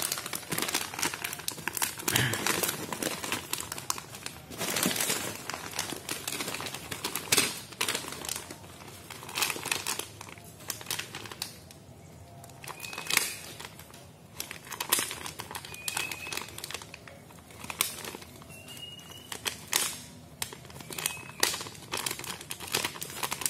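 Plastic snack bags crinkling and rustling as they are handled, with a bag being slit open with a utility knife; a run of short, uneven crackles.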